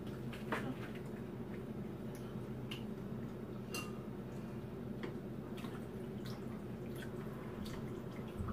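Hot-pot meal at the table: scattered small clicks, drips and wet pops from chopsticks working in a pan of simmering shabu-shabu broth and from eating, over a steady low hum.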